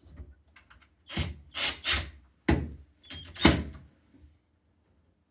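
Knocks and clunks of door lock hardware being handled and fitted against a door, about six irregular strokes close together, with a few faint clicks before them.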